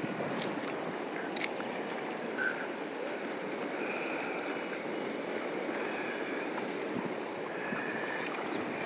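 Steady outdoor harbour ambience: a wash of water and wind noise, with a few faint clicks near the start.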